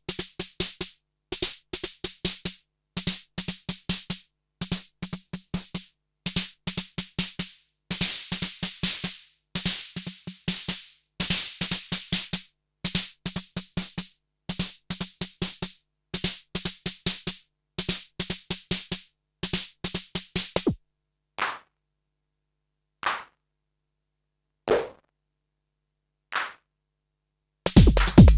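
Arturia DrumBrute analog drum machine playing quick repeating clusters of short percussive hits for about twenty seconds. Then come four single, widely spaced hits, and near the end a loud, full pattern with a deep kick drum starts.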